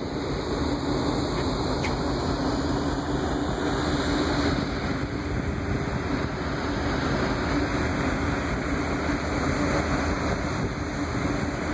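Steady drone of a car ferry under way: a constant engine hum under the rushing of its churning wake, with wind buffeting the microphone on the open deck.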